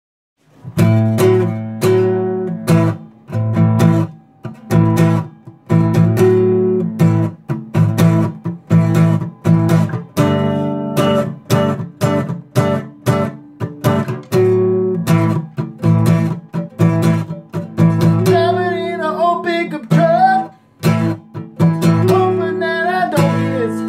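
Acoustic guitar in drop D tuning playing a rhythmic picked riff over sustained low bass notes, with the echo of a small bathroom.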